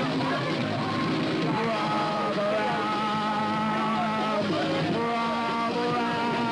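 Rock music with electric guitar holding long sustained notes, shifting to a new chord about four and a half seconds in.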